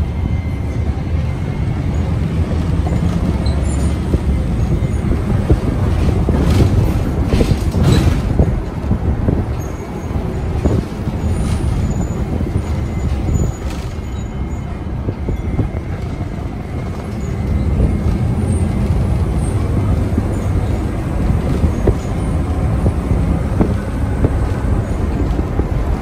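City bus riding along: a steady low engine and road rumble heard from inside the cabin, with a few sharp rattles about six to eight seconds in. It eases off for a while in the middle, then builds again.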